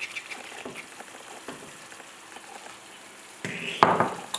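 Tomato sauce sizzling in a frying pan. Near the end, a wooden spatula scrapes and knocks against the pan as the sauce is stirred.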